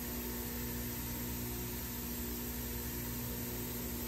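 Bench grinder with a wire wheel spinning free, giving a steady motor hum over an even hiss.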